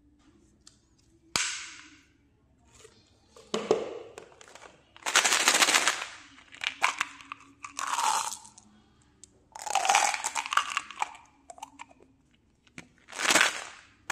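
Candy containers handled by hand: a plastic bottle of small white candy pellets rattled and poured out into a palm, in several short bursts of rattling and clatter, starting with a sharp click about a second and a half in.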